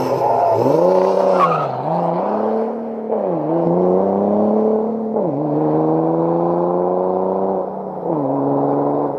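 Straight-piped 3.0 TDI V6 diesel exhaust as the car pulls away and accelerates through the gears. The pitch climbs in each gear and drops sharply at four upshifts.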